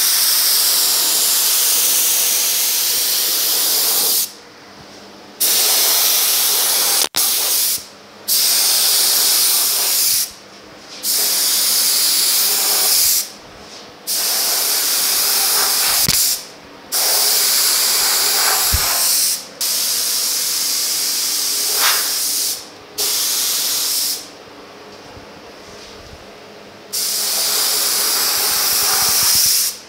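Gravity-feed paint spray gun with a large 1.7 mm tip spraying polyester primer: a loud air hiss in passes of a few seconds each, broken by short gaps about nine times. The gun is run at high air pressure so the large tip will atomize the primer.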